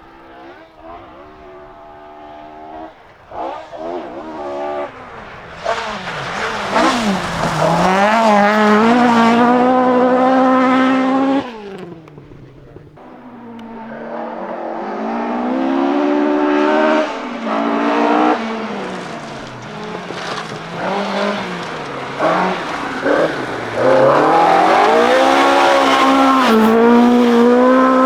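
Ford Escort Mk2 rally car engines driven flat out, the revs climbing and dropping again and again through gear changes as a car approaches. The sound cuts off abruptly about a third of the way in, then a second run builds and is loudest near the end.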